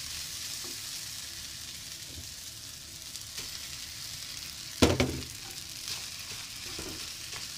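Fried rice sizzling in a nonstick frying pan while it is stirred with a wooden spatula and scrambled egg is tipped in from a bowl. A single sharp knock on the pan, with a short ring, about five seconds in.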